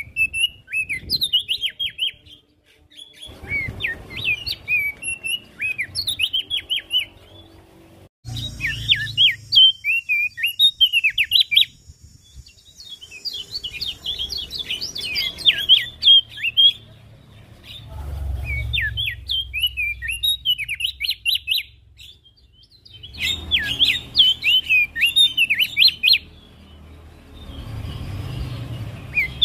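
Opior jambul (Javan grey-throated white-eye) singing a rapid, chattering song of high chirps and trills in bursts of a few seconds, with short pauses between them.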